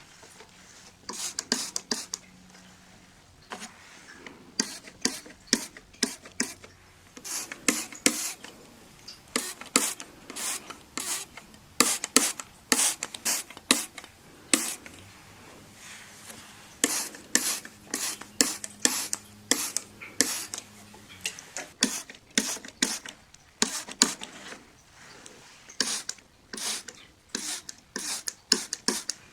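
Window glass being cleaned by hand: many quick, irregular rubbing and wiping strokes on the glass, coming in bursts with short pauses.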